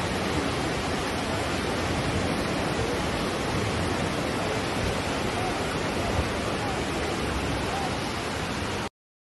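Floodwater torrent rushing in a steady, unbroken roar of noise, cutting off suddenly near the end.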